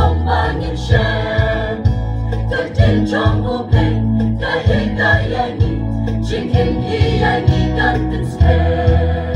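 Mixed church choir of women's and men's voices singing a gospel hymn through microphones and loudspeakers, over a low bass accompaniment.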